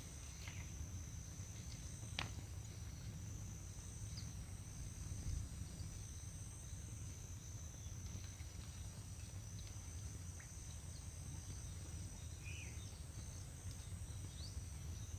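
Insects shrilling steadily in two high thin tones over a low rumble on the microphone. There is a single sharp click about two seconds in and a few faint chirps.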